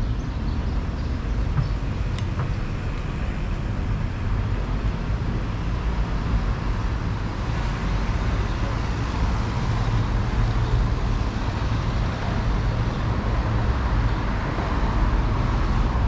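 Steady outdoor street ambience: a continuous low rumble of road traffic.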